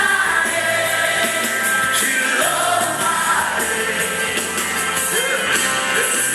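Music with singing voices over a band accompaniment.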